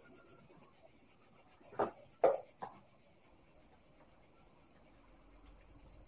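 Three quick clunks about two seconds in, the middle one the loudest, as the e-bike is handled into the repair stand's clamp. A steady high insect buzz runs underneath.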